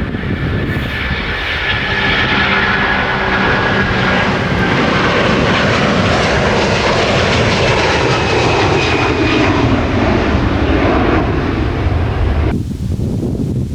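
Jet airliner's engines passing close by, a loud rush with a whine that slowly falls in pitch as the aircraft goes past. The sound cuts off suddenly near the end.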